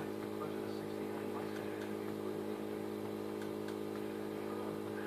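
Quarter-scale live steam 4-6-4 Hudson locomotive running on compressed air from a small nebulizer compressor, its wheels and valve gear turning freely with the driving wheels raised. A steady hum runs throughout, with faint irregular clicks from the motion.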